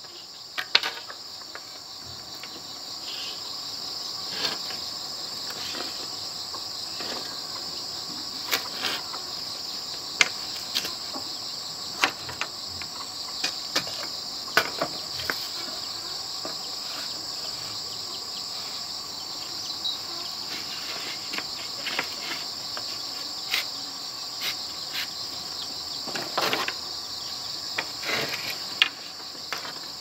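Steady high-pitched insect chorus, with scattered light clicks and knocks of bamboo strips and poles being set down and tapped against each other and a concrete floor.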